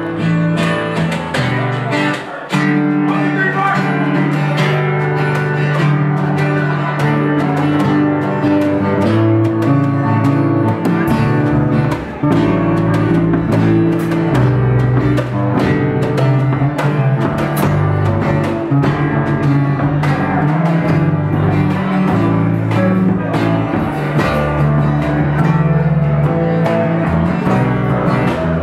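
A band playing live in an acoustic arrangement: strummed acoustic guitars over a drum kit. Lower notes fill in the bottom end about eleven seconds in.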